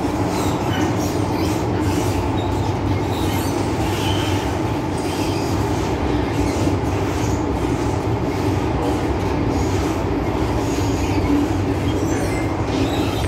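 Metro-Cammell M-Train electric multiple unit running along the line, heard from inside the passenger car: a steady, even noise of wheels on rails and car running gear.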